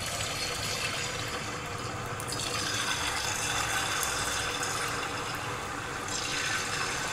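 Jalebi batter sizzling and bubbling as it is piped into hot ghee in a kadhai: a steady frying hiss that gets louder about two and a half seconds in as more batter goes in, easing again near the end.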